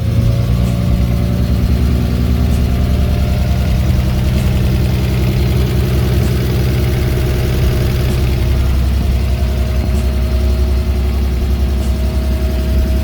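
BMW E30's freshly rebuilt 2.8-litre single-VANOS 24-valve straight-six, swapped in from a 328, idling steadily in neutral.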